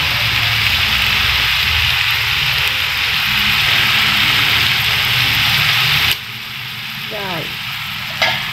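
Sauce sizzling in a hot frying pan over the low roar of a gas burner, both stopping suddenly about six seconds in; near the end come two sharp metallic clinks, the second ringing briefly.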